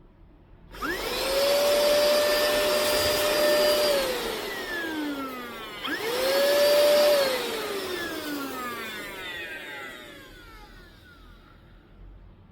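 Cordless handheld vacuum cleaner switched on twice. Each time its motor whines up to a steady high pitch, runs for a few seconds, then is switched off and spins down with a falling whine.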